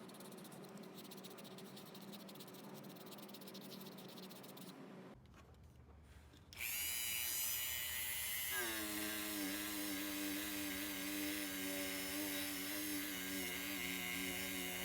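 A small high-speed electric motor tool runs faintly, goes quiet, then starts abruptly about six and a half seconds in and runs steadily with a loud buzzing whine.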